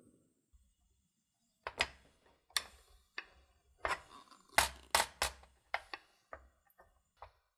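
A cast-metal taiyaki mould being handled on a portable gas stove: about a dozen sharp, irregular metal knocks and clicks as the pan is turned upside down on the burner grate, loudest in the middle.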